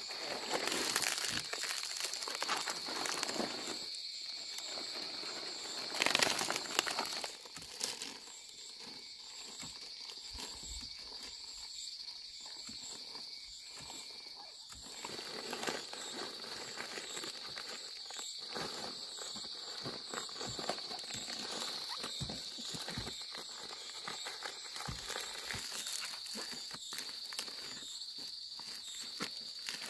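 Fan-palm leaves rustling and crackling as they are handled by hand and gathered into bundles, with a louder burst of rustling about six seconds in. A steady high-pitched drone runs underneath.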